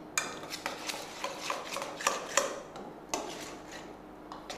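Wire balloon whisk stirring in a stainless steel mixing bowl, its wires clicking and scraping irregularly against the metal a few times a second, as chopped chocolate is stirred with warm melted milk and butter to melt it.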